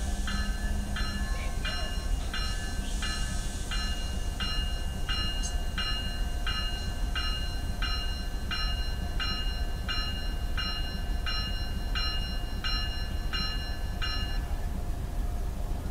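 Railroad warning bell dinging about one and a half times a second, then stopping about 14 seconds in, over a steady low rumble from the waiting freight train.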